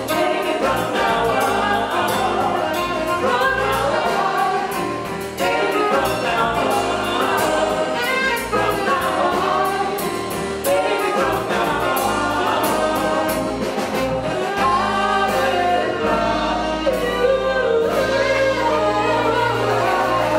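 A woman singing lead with a live band of keyboard, bass guitar and drums, cymbals ticking steadily through it.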